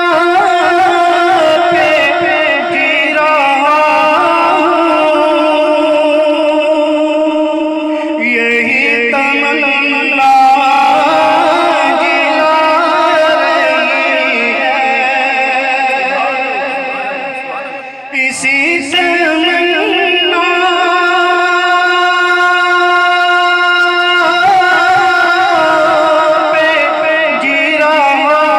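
A man singing a naat into a microphone, drawing out long, wavering held notes without words. The voice drops away briefly about two-thirds of the way through, then resumes.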